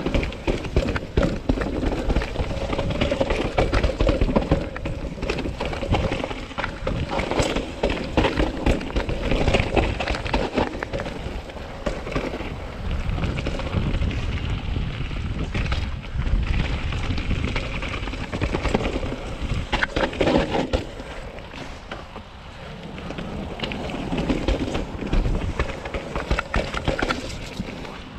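2020 Norco Sight full-suspension mountain bike riding fast down a rough dirt trail: tyre noise over dirt and roots, with a constant clatter of knocks and rattles from the bike. Wind buffets the camera microphone as a heavy rumble. The noise eases briefly about two-thirds of the way through.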